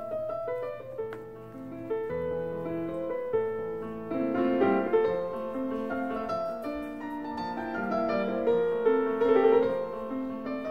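Background piano music, a melody of sustained notes.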